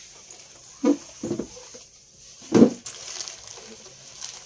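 School backpack being pulled off the shoulders and swung round: fabric and straps rustling, with three short dull bumps, the loudest about two and a half seconds in.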